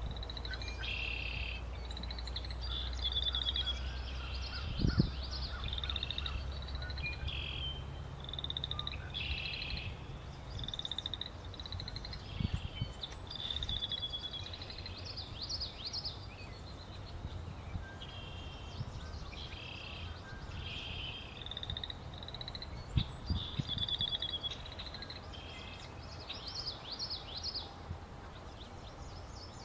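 Pond wetland chorus of frogs and birds: many short, high, trilling calls repeating and overlapping throughout. A low rumble underlies the first third and stops about ten seconds in, and there are a few soft thumps.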